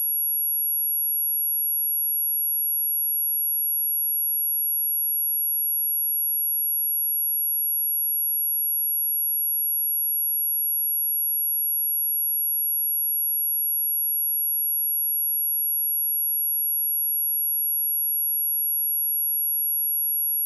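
A pure electronic sine-wave test tone at 11,324 Hz, a single high-pitched whistle held steady without change.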